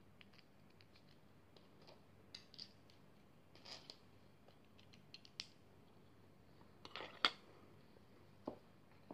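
Plastic Lego pieces clicking and rattling as they are handled and pressed together: a scatter of short sharp clicks and brief rustles, the loudest about 7 seconds in.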